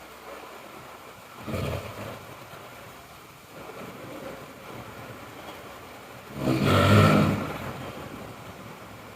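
A sleeping person snoring: a shorter snore about a second and a half in, then a long, loud, low snore lasting about a second, starting around six and a half seconds in.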